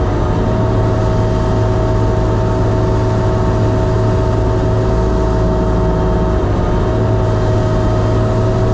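Sherp amphibious ATV's diesel engine running at a steady speed while the vehicle swims. It makes a constant, even drone, with a brief dip about six and a half seconds in.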